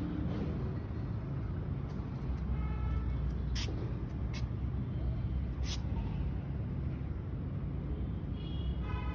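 Steady low rumble of distant road traffic, with a few short sharp clicks in the middle and two brief high-pitched tones, one a few seconds in and one near the end.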